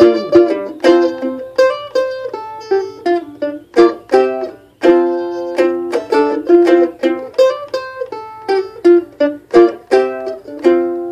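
Mandolin played solo, an instrumental break of picked chords and notes, each stroke ringing and then fading.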